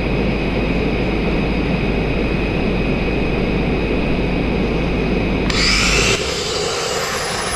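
Sandblasting rig running: a steady rush of compressed air from the blast hose. About five and a half seconds in it changes to a brighter hiss as the nozzle is opened on the stone sill. Water in the air line is clogging the sand.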